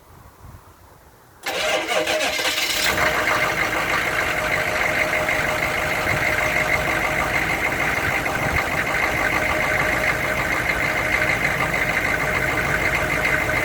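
A 1998 diesel pickup engine cranking and catching after about a second, then settling straight into a steady idle: a quick, clean start.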